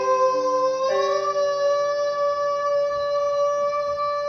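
A singer holding one long sung note in a breath-control exercise, sliding up a little about a second in and then held steady, with piano chords underneath at the start.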